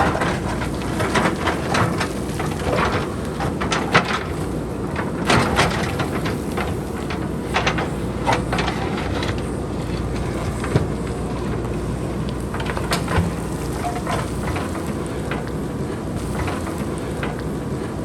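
Boulders and pebbles clattering as they tumble down a hillside being cut by a JCB backhoe loader: many sharp, irregular knocks, thick in the first half and thinning out later, over the backhoe's steady low engine rumble.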